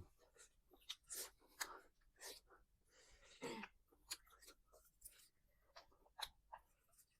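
Faint eating sounds: quiet chewing with scattered small crunches and clicks at an irregular pace.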